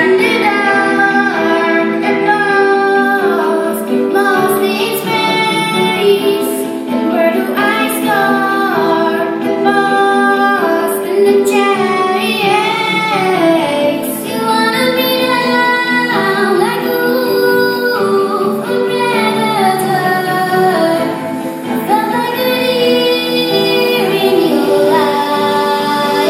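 Recorded pop song with a female lead vocal singing a melody over a steady instrumental backing.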